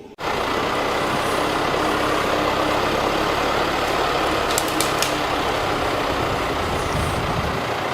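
A steady engine running: an even, loud rush with a faint steady hum, and a few short clicks near the middle.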